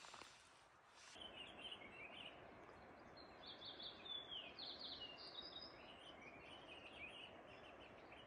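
Faint birdsong in conifer forest: many short chirps and trilling notes from small birds over a steady faint hiss, starting about a second in.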